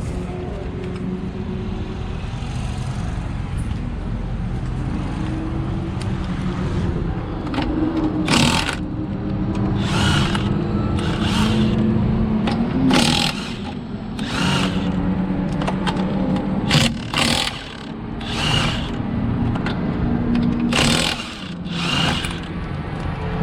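Impact wrench working lug nuts in a string of short bursts starting about eight seconds in, over the steady drone of cars running.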